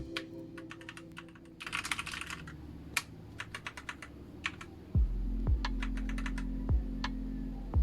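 Typing on a Rakk Lam-Ang Lite mechanical keyboard with red linear switches: scattered key presses with a quick flurry of keystrokes. About five seconds in, background music with a deep bass beat takes over.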